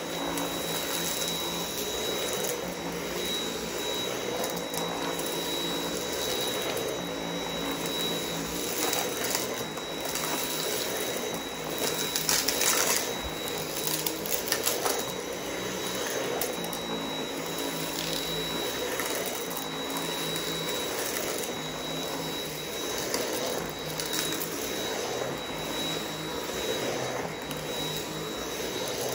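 Dyson V8 cordless stick vacuum running steadily with a high motor whine while its motorised cleaner head goes over a rug, with scattered crackles of debris being sucked up, a louder run of crunching about halfway through.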